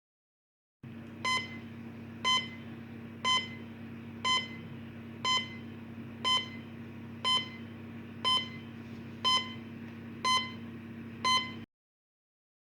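Electronic monitor-style beep sound effect, made to serve as either a heart-monitor (EKG) beep or a bomb timer tick: eleven short, high beeps evenly spaced about a second apart over a steady low hum and hiss. It cuts off suddenly.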